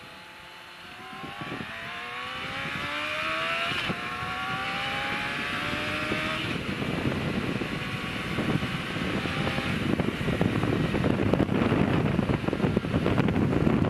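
Yamaha FZR 600 inline-four motorcycle accelerating hard, its engine pitch rising, dropping at a gear change about four seconds in, then rising again. Wind rush on the microphone grows louder as speed builds.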